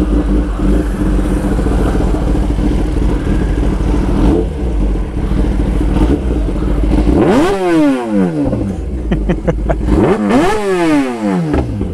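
Kawasaki Ninja ZX-10R's inline-four engine idling steadily, then revved hard twice through its exhaust, about 7 and 10 seconds in. Each rev rises sharply in pitch and falls back to idle.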